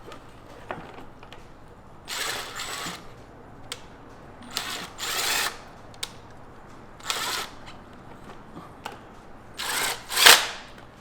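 A power drill-driver runs the front-fender bolts in, in four short bursts a couple of seconds apart, one per bolt. The last burst is the loudest.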